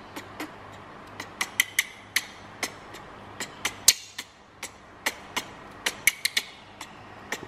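A plastic baby bottle being shaken and handled: a run of irregular, sharp clicks and knocks, some with a short ring.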